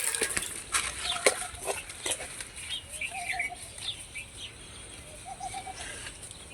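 Bird calls, likely chickens: a few short wavering calls, with some light clicks and knocks near the start.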